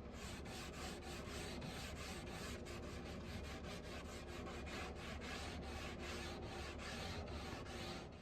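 Sanding a wooden dresser: rhythmic back-and-forth scratchy strokes, about three to four a second, over a steady low hum.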